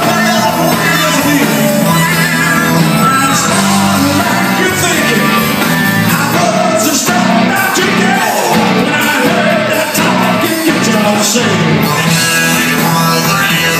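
Live rock band playing loud: electric guitars, bass and drums, with a man singing lead into a microphone.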